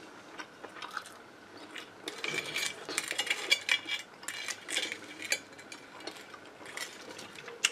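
A steel knife sawing through the crisp breadcrumb crust of a fried chicken drumstick, the crust crackling, with knife and fork clicking and scraping on a porcelain plate. The cutting starts about two seconds in, grows busier, and eases off after about five and a half seconds into a few light clicks.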